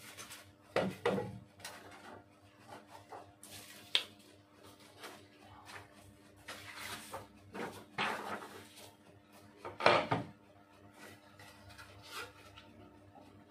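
Manual die-cutting press being worked by hand: scattered knocks and clicks with a few longer sliding scrapes, the loudest knock about ten seconds in, over a faint steady hum.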